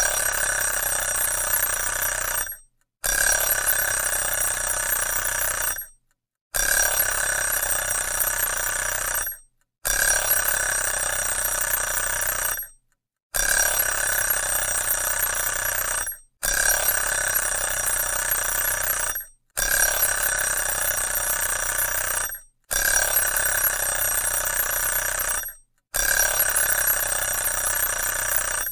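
Alarm clock ringing in repeated bursts of about three seconds, each followed by a silence of about half a second, around nine times in a row.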